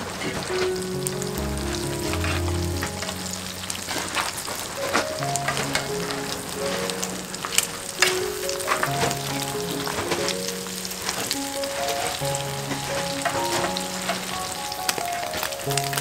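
Tuna-and-egg patties sizzling as they fry in hot oil in a pan: a steady frying hiss with a few sharp crackles, the strongest about halfway through. Soft background music with sustained notes runs underneath.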